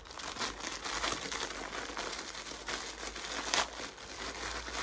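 Packaging crinkling and rustling in irregular crackles as a small parcel is unwrapped by hand.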